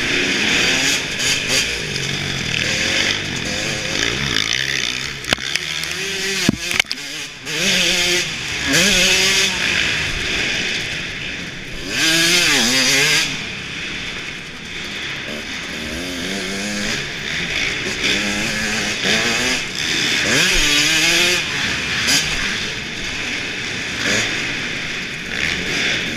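Motocross dirt bike engine heard close up under riding, revving up and falling back again and again as the rider works the throttle through the corners and straights. A few sharp knocks about six to seven seconds in.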